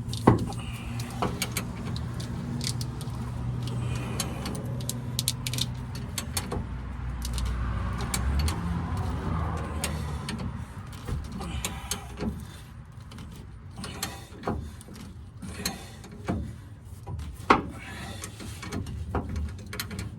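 Hand tools working on the spare tire winch's stubborn mounting bolts: scattered ratchet clicks and metal clinks and clanks, over a steady low hum that drops away about halfway through.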